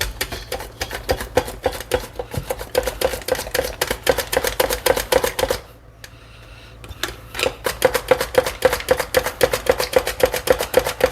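Potatoes being sliced on a mandoline: quick, even strokes several times a second, each with a short ringing clack, with a brief pause about halfway through before the slicing resumes.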